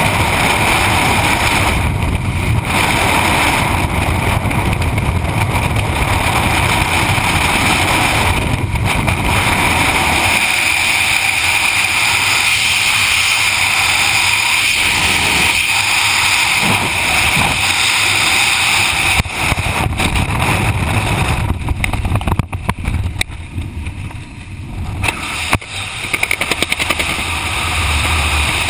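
Freefall wind noise: a loud, steady rush of air buffeting a helmet-mounted action camera's microphone, dipping and wavering for a few seconds about three-quarters of the way through.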